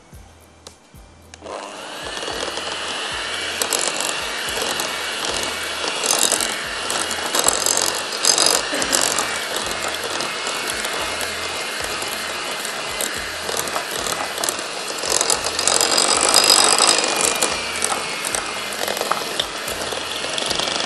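Anex electric hand mixer starting about a second and a half in, then running steadily with a high motor whine as its beaters cream butter, sugar and vanilla essence in a glass bowl.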